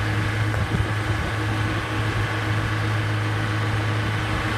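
A steady low mechanical hum with an unchanging pitch, like a motor running, with a few light knocks about a second in.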